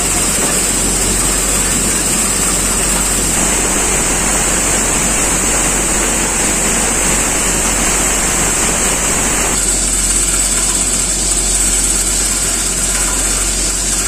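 Tractor-driven multi-crop thresher running steadily at full speed, a loud, even machine noise with a constant low hum and a high whine, along with the hiss of grain pouring from its outlet chute. The noise shifts in tone about 3 and 10 seconds in.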